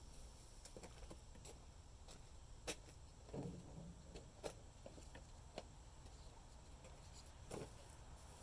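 Faint, scattered light clicks and taps of parts being handled during an air filter change, over near-quiet room tone.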